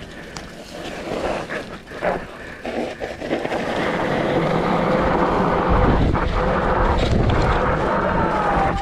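Wind rushing over a GoPro Hero 8's microphone, with the rumble of a mountain bike rolling down a dry dirt trail. It starts patchy with a few knocks and builds into a loud, steady rush about four seconds in.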